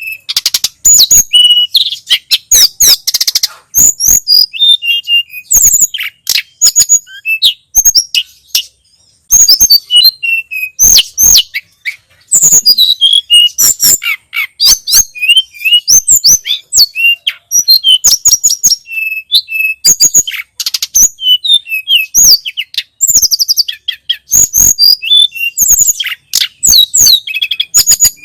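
Tledekan gunung (sulingan gunung) songbird singing a fast, loud run of high chirps, whistled notes and short trills, nearly unbroken with only brief pauses.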